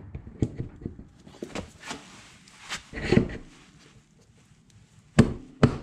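Clicks and light scrapes of a garden-tractor front wheel being slid onto its axle spindle over newly fitted bearings and worked by hand at the hub, then two sharp knocks near the end.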